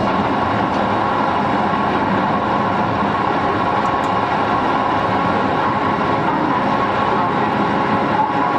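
Iyotetsu Type 50 tram running at a steady speed on street track, its nose-suspended (tsurikake) traction motors and gearing giving a steady whine over the rumble of the wheels on the rails.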